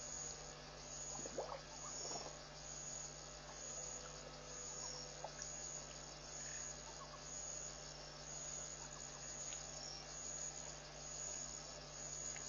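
Night insects chirping in a high, pulsing trill that repeats a little more than once a second, over a steady low hum.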